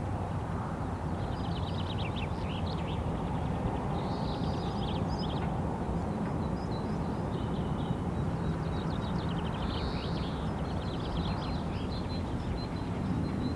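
Small birds calling in high, quick trills and chirps, with one swooping call near the middle, over a steady low rumble.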